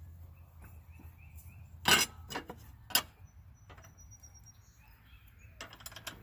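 Hand tools and metal parts clinking and knocking during repair work. Two sharp knocks come about two and three seconds in, with lighter clicks between them and a quick cluster of clicks near the end.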